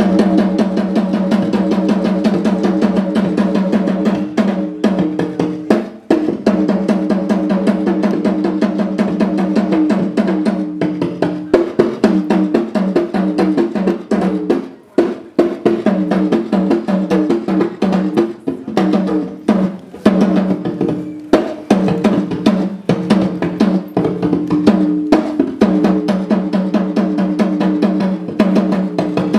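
Fast, continuous drumming on several drums, with a steady ringing drum pitch under the strokes. It drops off briefly about six seconds in and again around fifteen seconds.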